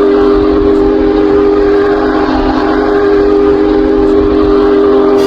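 Ice hockey arena goal horn blowing a steady low chord of several tones, held without a break.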